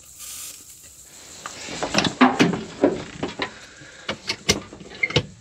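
Short hiss of a WD-40 aerosol can spraying onto the handbrake drum, then a run of sharp clicks and clunks in the cab as the handbrake is let off.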